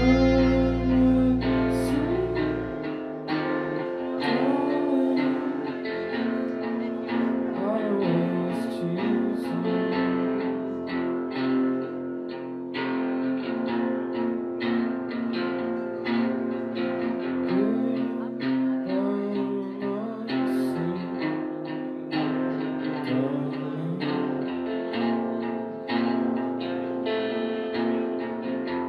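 Live indie rock band playing an instrumental passage: electric guitars with sliding, bending notes over bass guitar and regular sharp hits. A low held bass note drops out about three seconds in.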